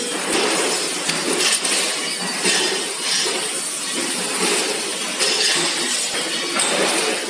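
Factory floor din of metal-working machinery, with repeated metallic clinks and clatter about once a second.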